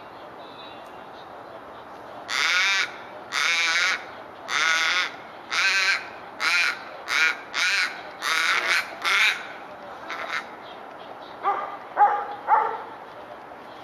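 Australian raven calling: a series of about ten loud, harsh, drawn-out 'aah' calls, the first few longest and the later ones shorter and quicker. Near the end come three shorter, lower calls.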